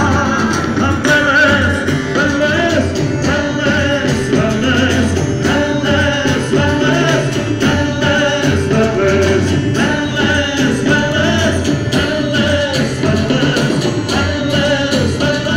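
Folk band playing live through a PA: singing over fiddle, double bass, guitar and drums with a steady beat.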